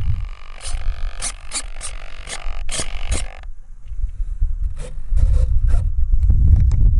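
Scraping and rubbing handling noise on the foam fuselage of an Easyglider 4 sailplane, right at its onboard camera, with scratchy clicks for about three and a half seconds. After about five seconds comes a low rumbling.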